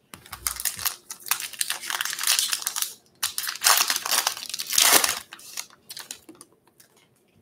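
Foil wrapper of a Pro Debut baseball card pack crinkling and tearing as it is ripped open by hand, in two long stretches of crackling, then a few lighter crackles as the cards are slid out.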